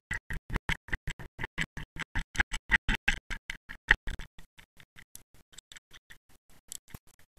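Rapid, regular clicking, about seven sharp clicks a second, picked up underwater by a camera in its waterproof housing; the clicks are loud for about four seconds, then carry on fainter and a little slower.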